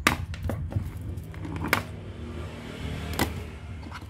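Handling noise on a workbench: a few sharp clicks and knocks as cables and a plastic sewing-machine control panel are moved about, over a steady low hum.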